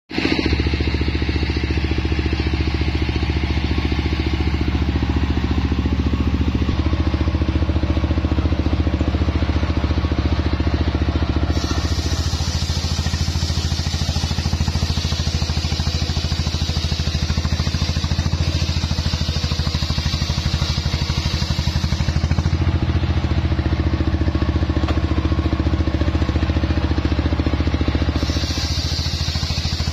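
The engine driving a homemade circular sawmill runs steadily throughout. A harsher, higher hiss joins about twelve seconds in and lasts about ten seconds, then returns near the end: the big circular blade cutting through a jowar log.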